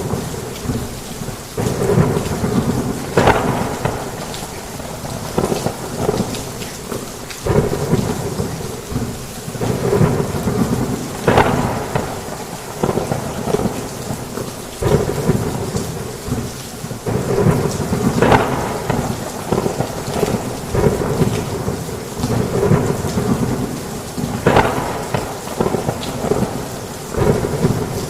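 Heavy rain falling on a roof in a thunderstorm, a dense steady downpour with rumbling swells of thunder rising out of it every second or two.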